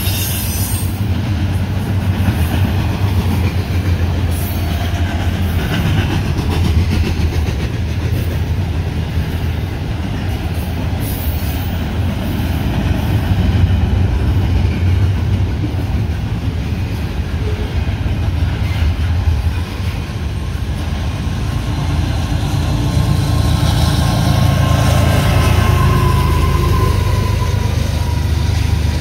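Double-stack intermodal freight train's well cars rolling past, a steady loud rumble of steel wheels on rail.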